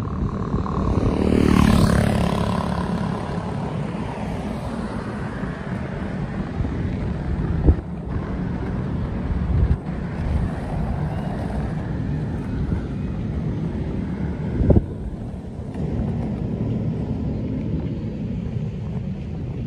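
Steady low rumble of a jet airliner climbing overhead. About a second in, a louder passing sound falls quickly in pitch, and two sharp knocks come, one near the middle and one about two-thirds through.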